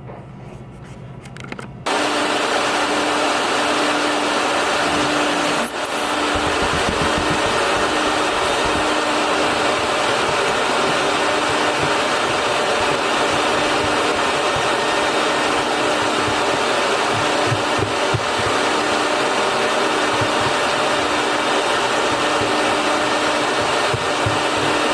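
A machine running loud and steady, like a motor-driven appliance. It starts abruptly about two seconds in and keeps going without a break until just before the end.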